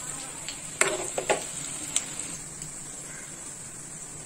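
Banana-flower and green gram pakoda fritters deep-frying in hot oil in a metal kadai, with a steady sizzle. A metal ladle knocks and scrapes against the pan a few times in the first two seconds as the fritters are turned.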